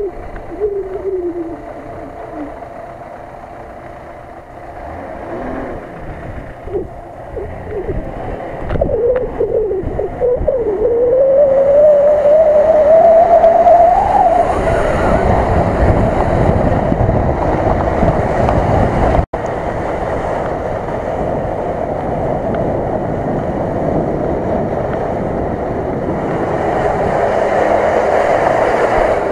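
Nissan Patrol 4x4's engine revving hard as it drives through deep mud, wheels churning. The revs waver at first, then climb steadily and run high and loud from about twelve seconds in, with a momentary dropout about two-thirds through.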